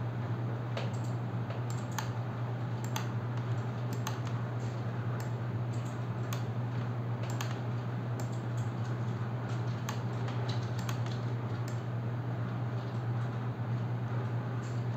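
Irregular clicks of a computer keyboard and mouse as keys are pressed and the mouse button clicked, over a steady low hum.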